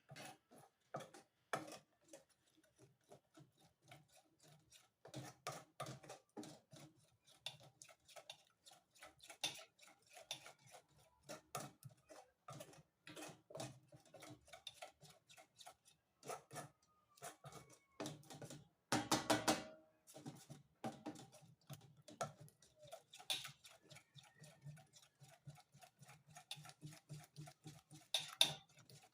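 A spoon clicking and scraping against a bowl while stiff gum paste ingredients are mixed, in quick irregular taps, with one louder scrape lasting about a second about two thirds of the way through.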